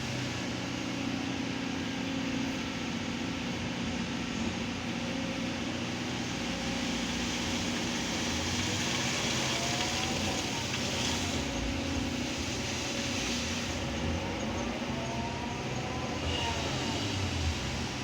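Kobelco excavator's diesel engine running steadily under load, with a higher whine that rises and falls twice, about nine and fifteen seconds in, as the machine works.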